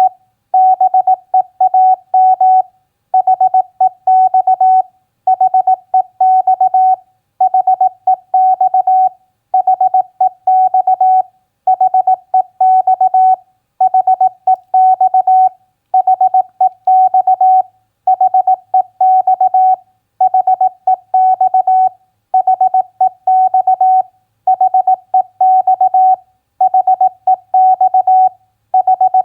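Morse code (CW) at 18 words per minute, sent as a single steady mid-pitched beep keyed on and off in dots and dashes. Groups of characters come with short pauses between words about every two seconds, spelling out the standard exchanges of an amateur radio contact.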